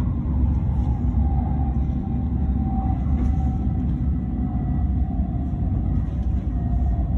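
Cabin running noise of an N700A Shinkansen train in motion, heard from inside the passenger car: a steady low rumble, with a faint whine slowly falling in pitch.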